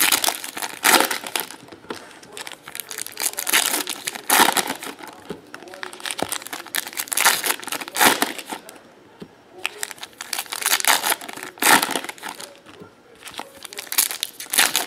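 Foil trading-card pack wrappers crinkling and tearing open in repeated, irregular bursts as packs are handled and opened one after another.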